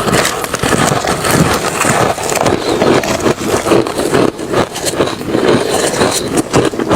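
Refrozen crushed ice and shaved ice being bitten and chewed: loud, continuous crunching with rapid crackles throughout.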